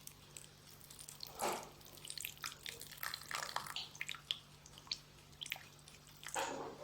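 A lemon being squeezed, its juice falling into a bowl in faint, irregular drips and small splashes.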